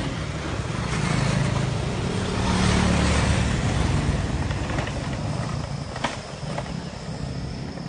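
Motorcycles passing close by one after another, their small engines swelling and fading as each goes past, then quieter after about four seconds. Two sharp clicks near the end.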